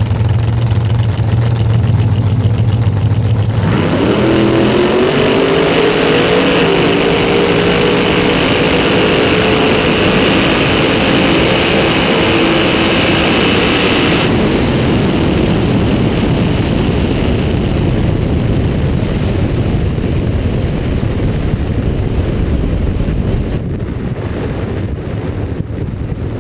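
Top Dragster engine running steadily on the start line, then at full throttle from about four seconds in, its pitch climbing and then holding high down the track. About fourteen seconds in it lets off, leaving a steady rushing noise.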